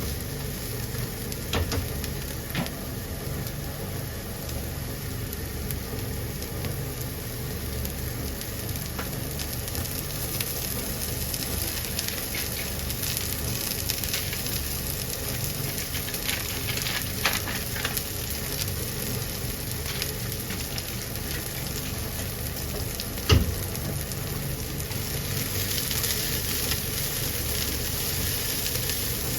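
Food sizzling steadily in hot oil in a frying pan, with occasional clicks of a utensil stirring in the pan and one sharp knock about three-quarters of the way through.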